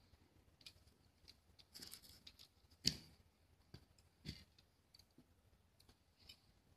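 Faint, scattered clicks and light scrapes of glass mosaic tesserae being handled and pressed into mortar with a slim tool. The sharpest click comes about three seconds in, another about a second and a half later.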